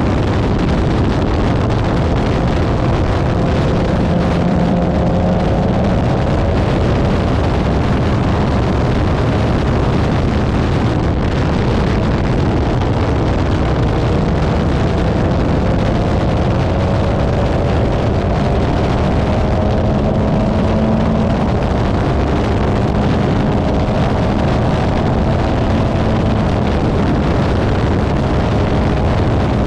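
Formula 4 open-wheel race car at speed, heard from an onboard camera: a steady, loud rush of wind buffeting the microphone over the engine note, which climbs slowly in pitch a few times as the car accelerates.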